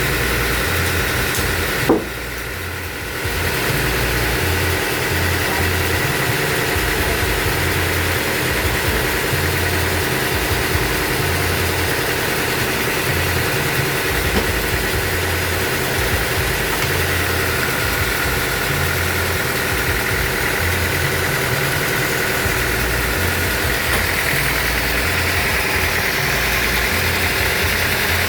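Band sawmill machinery running steadily, a low pulsing hum with a steady high whine. About two seconds in, a single sharp knock, after which the noise briefly drops before carrying on.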